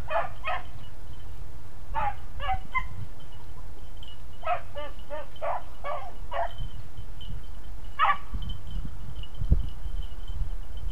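Beagles barking in quick bursts of short chop-mouth barks while running a rabbit, several barks to a burst with pauses between. A thin steady high tone comes in about halfway through.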